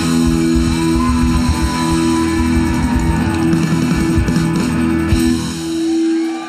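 Live rock-and-roll band playing an instrumental stretch: electric guitar, electric bass, drum kit and keyboards. About five seconds in, the drums and bass drop out, leaving a held chord.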